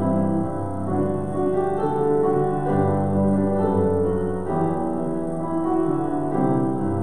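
Slow keyboard music: held chords that change every second or two.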